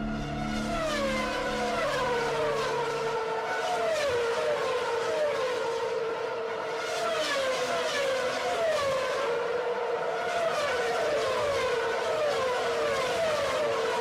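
Honda CBR150R motorcycle engine running at high revs, its note swooping down and settling again about once a second. Background music fades out about three seconds in.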